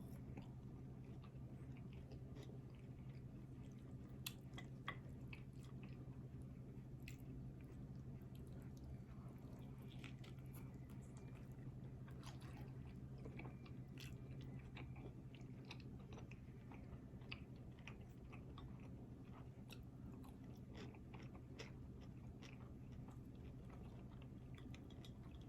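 A person chewing and biting food, many small wet clicks and crunches scattered throughout, over a steady low hum.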